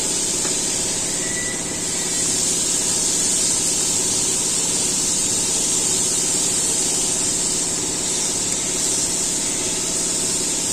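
An engine running steadily at idle, with a constant high hiss over its hum.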